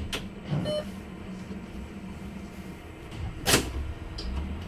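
Inside a Heuliez GX337 electric bus under way: a steady low hum and rumble, broken by two sharp clacks, a small one at the start and a loud one about three and a half seconds in. A brief faint tone sounds just under a second in.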